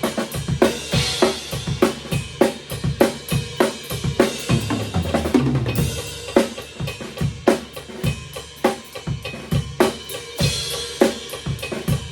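Rock drum kit playing a fast, steady beat of bass drum and snare with cymbal crashes, over a metronome click track. Between about four and six seconds in, a fill of lower-pitched drum hits steps down in pitch.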